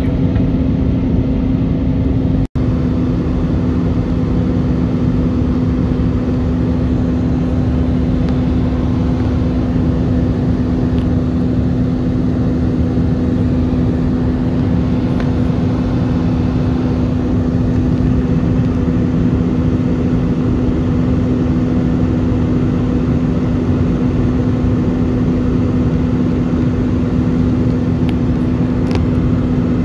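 Airbus A320 cabin noise during climb-out: the engines make a steady drone with a constant low hum running through it. The sound cuts out for an instant about two and a half seconds in.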